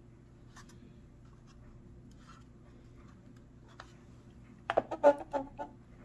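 Small plastic model building handled over a tabletop: a few faint ticks, then a quick cluster of sharp plastic clacks about five seconds in as it is set down on the table.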